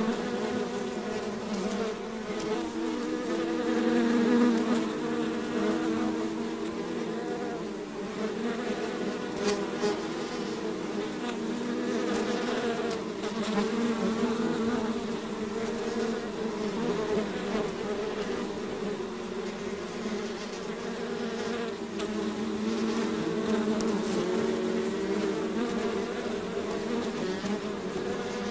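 Swarm of bees buzzing: many overlapping, wavering hums that hold steady, swelling a little about four seconds in.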